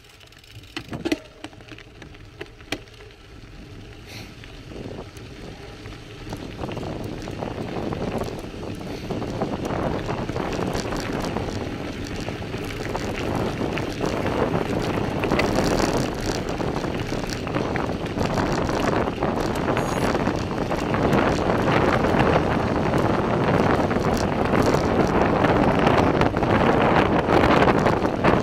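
Gravel bike riding over a loose gravel track: tyres crunching on the stones, with wind on the microphone, growing steadily louder. A few sharp knocks in the first few seconds.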